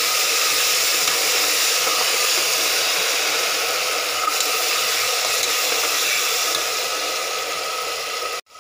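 Ginger-garlic paste frying in hot oil with browned onions in a pressure cooker, a loud, steady sizzling hiss that cuts off suddenly near the end.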